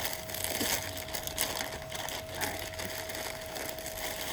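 Plastic shipping bag crinkling and crackling as it is handled and torn open, with a steady faint high hum behind.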